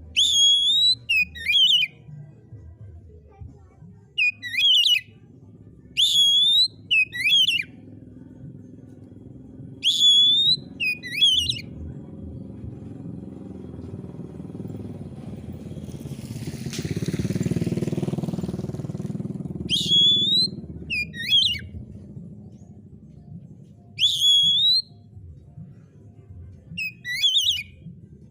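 Oriental magpie-robin (kacer) singing: loud, short whistled phrases with quick pitch sweeps, delivered in clusters every few seconds. A low steady rumble runs underneath. A broader noise swells and fades midway through.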